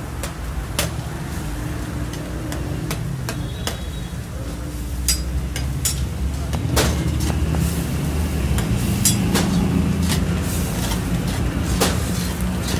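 Metal spatula and utensil knocking and scraping against a steel karahi as chicken in gravy is stirred, with irregular sharp clinks. A steady low rumble runs underneath.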